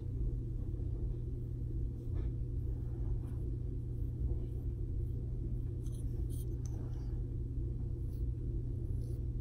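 Steady low background hum, with a few faint, brief rustles and light clicks.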